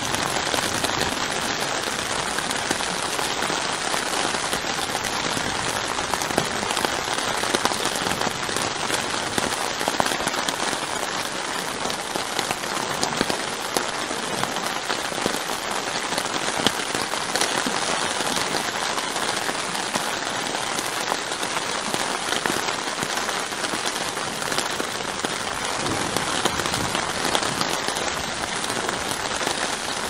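Steady rain falling on a tarp tent roof: a dense, even hiss of drops with many small separate drop ticks.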